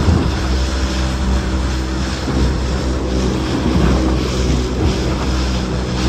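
Small open boat's outboard motor running steadily at speed, with water rushing past and the hull thumping a few times as it slaps through choppy waves.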